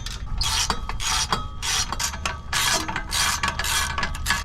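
Hand socket ratchet worked back and forth in quick strokes, about seven in a row, loosening the bolts of a car's stock exhaust.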